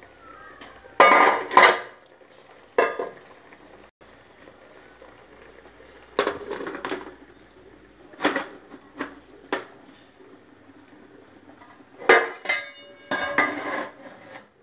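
Stainless steel steamer trays and lid clanking and clattering as they are handled: a series of irregular metal knocks, some ringing briefly.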